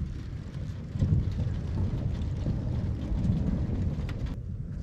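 Thunderstorm at night: a low rumble of thunder and wind buffeting the microphone, swelling about a second in. A lighter hiss over it cuts off abruptly near the end.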